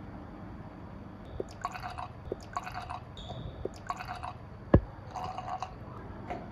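Milk glugging in short bursts as it is poured from a carton into a plastic baby bottle. A single sharp knock comes about three-quarters of the way through and is the loudest sound.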